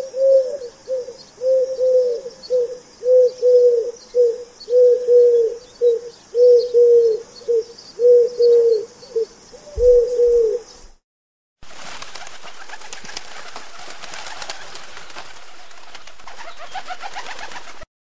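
Pigeon cooing: a steady run of low, repeated coos, about one phrase a second, lasting some eleven seconds. After a brief gap comes a steady hiss with fine crackles, lasting about six seconds.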